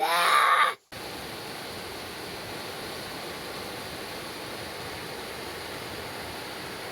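A brief loud voice call, then an abrupt cut to a steady rushing of flowing water, like a river or stream running close by.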